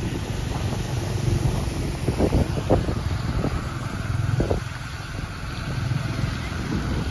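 Motorcycle engine running steadily, with a few short louder knocks or grunts in the middle.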